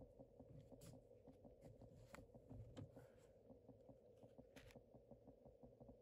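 Faint footsteps and creaking of bamboo deck slats as a person walks across the deck and sits down, with a handful of sharp clicks over a faint steady drone.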